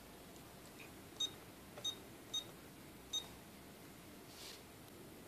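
Verifone card payment terminal giving four short, high beeps at uneven intervals.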